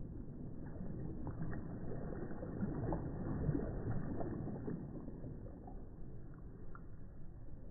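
Small waves breaking softly close by, a low wash of water with fizzing and crackling as the surf swells a few seconds in and then draws back.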